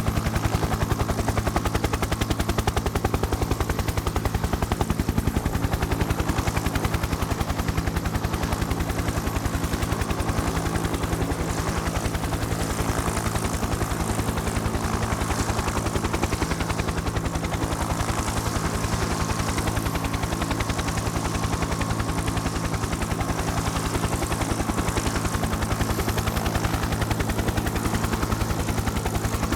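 A rapid, even mechanical pulsing over a steady low hum, unbroken and unchanging throughout, like a motor or rotor running.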